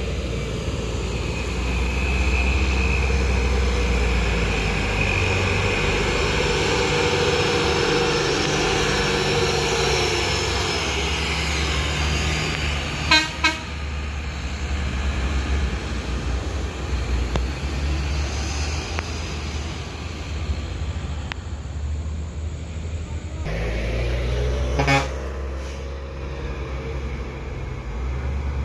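Road traffic on a hill climb: vehicle engines running as minibuses and trucks pass, with two quick horn toots about 13 seconds in and another short toot about 25 seconds in.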